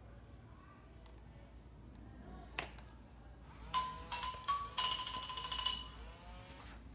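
Playskool Hasbro robotic triceratops toy playing a short electronic jingle through its built-in speaker: a few steady, chime-like notes stepping in pitch for about two seconds, starting a little past halfway. A single sharp click comes about a second before it.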